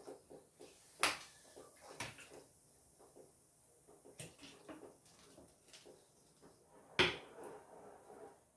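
A few light knocks and clicks of hard household objects being handled and set down, the sharpest about a second in and again about seven seconds in, with small ticks between.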